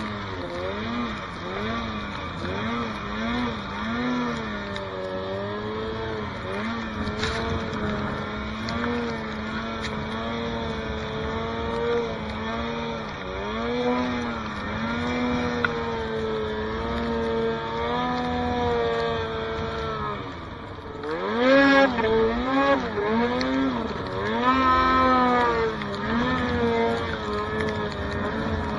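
Snowmobile engine revving up and down over and over as the throttle is worked through deep powder snow. About 21 seconds in the revs drop briefly, then climb sharply several times.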